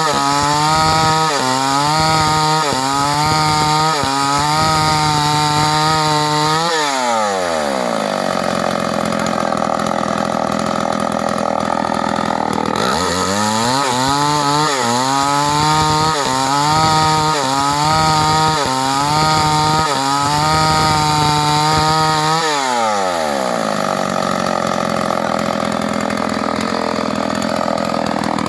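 STIHL 038 two-stroke chainsaw ripping a log lengthwise into boards, running hard under load with a wavering, pulsing engine note. About seven seconds in, and again about twenty-three seconds in, the pitch sweeps away and the pulsing gives way to an even, higher whine. The pulsing note returns about thirteen seconds in.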